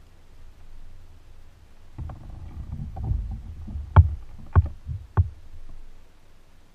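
Knocking and rumbling on a fishing kayak's hull as the angler moves his weight and gear around in it: a low rumble building from about two seconds in, then three sharp knocks about half a second apart.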